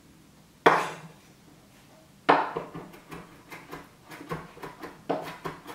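Chef's knife chopping garlic on a wooden cutting board: a single sharp knock about half a second in, then from about two seconds in a run of quicker chops, about three a second.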